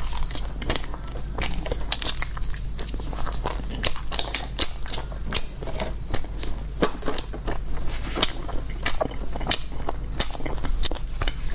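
Close-miked eating: crunchy bites and chewing with many sharp, irregular crackles, over a steady low hum.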